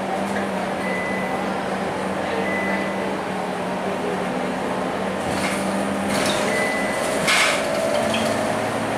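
Scania K230UB city bus's diesel engine and drivetrain heard from inside the moving bus: a steady hum that shifts after about four seconds, with a faint whine rising slowly near the end. Interior panels and fittings give short rattling knocks, the loudest about seven seconds in.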